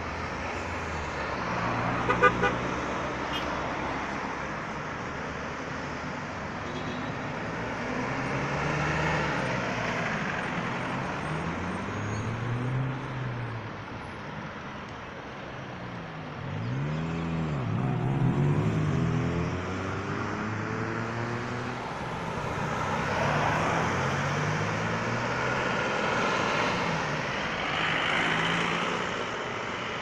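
Road traffic at a roundabout: car engines passing one after another, their pitch rising and falling as they speed up and slow down, over steady tyre noise. About two seconds in there is a quick burst of three short car-horn toots.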